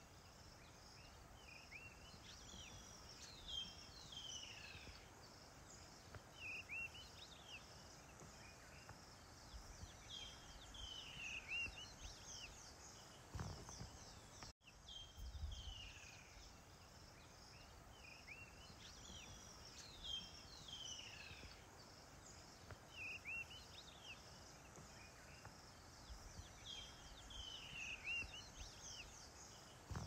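Faint background birdsong: short whistled calls that slide downward, repeating every few seconds over a soft steady hiss. About halfway through the sound cuts out for an instant, and the same stretch of calls plays again.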